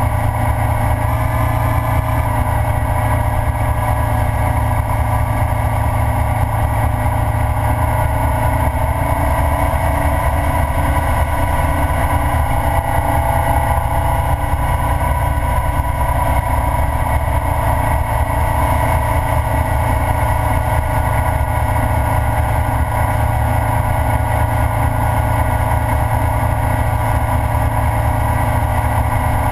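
Ural sidecar motorcycle's flat-twin engine running steadily at cruising speed, with wind noise.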